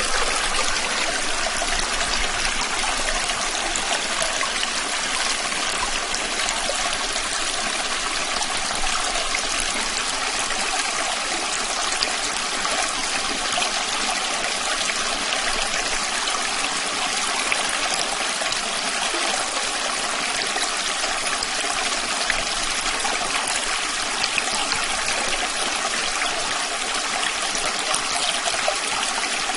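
A small stream flowing, its water trickling and babbling steadily.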